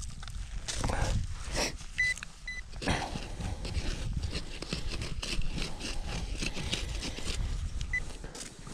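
Hand hoe scraping and knocking in loose, soft plowed soil while the dirt is sifted through. Two short, high electronic beeps about two seconds in and another near the end come from the metal detector, signalling metal in the soil. A steady low rumble runs underneath.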